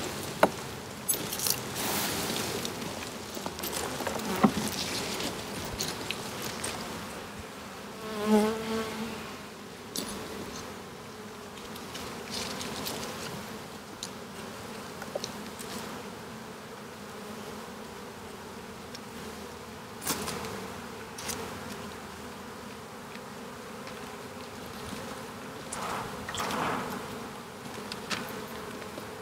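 Honeybees buzzing steadily around an open hive, with a few sharp knocks of hive parts. About eight seconds in, a brief louder buzz stands out.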